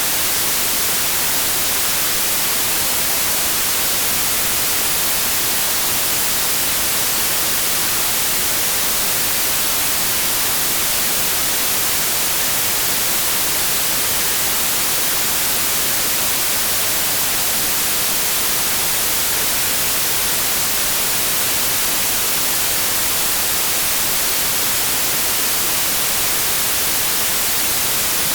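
Steady white noise: an even, unbroken hiss, brightest in the high frequencies.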